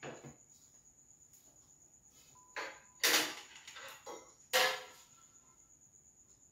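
Heavy metal lid of an aluminium uruli being handled and lifted off: a few sharp metal clanks and scrapes, the loudest two about three and four and a half seconds in, each with a short ring.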